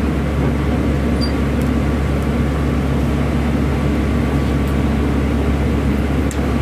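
Steady low drone inside the cabin of a 2018 Nova Bus LFS diesel city bus idling while stopped.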